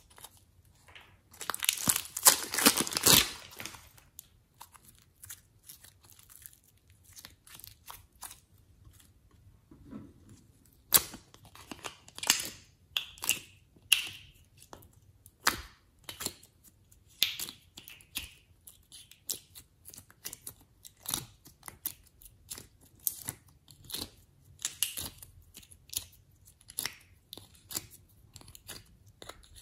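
Thin plastic wrap crinkling and tearing as it is peeled off a ball of modeling clay, loudest about two seconds in. Then a long series of short, irregular clicks and crackles as soft clay is pulled out of a plastic container.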